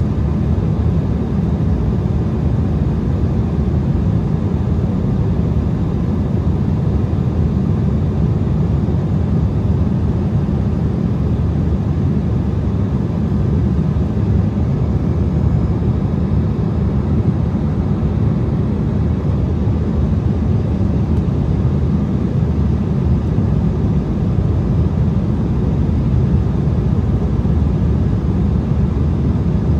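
Steady cabin noise inside an Embraer ERJ-175 jet in flight: an even, bass-heavy rush of airflow and engine noise that stays unchanged throughout.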